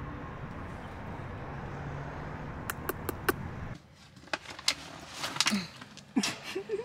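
Steady low background hum with a few sharp clicks. After a cut, a paper bag is handled in someone's hands, crinkling and rustling in a series of short crackles.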